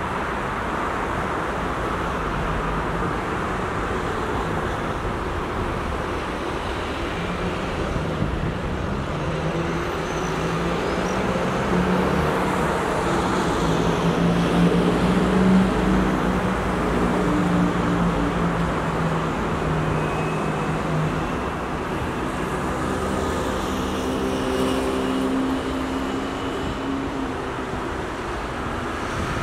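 City road traffic: cars passing steadily. A vehicle's engine drone comes in about a quarter of the way through, is loudest around the middle, and fades near the end.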